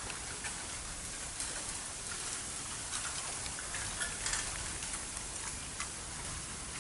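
Steady rain, with many separate drops ticking sharply on a hard surface.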